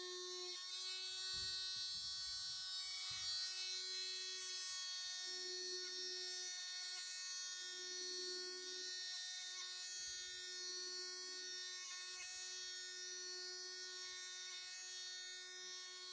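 Small electric power sander running steadily with 100-grit paper on a wooden model-ship hull, a thin motor hum whose pitch dips briefly several times.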